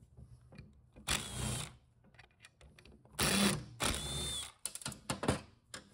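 Cordless driver with a Torx bit spinning out the screws that hold the solenoids to a VW 01M/01P automatic transmission valve body, in three short runs of about half a second each. Light metallic clicks follow near the end.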